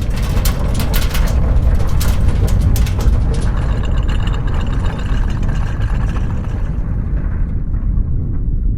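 Earthquake sound: a loud, deep, continuous rumble with rattling crackles over it for the first few seconds. The higher rattle fades away, and only the low rumble is left near the end.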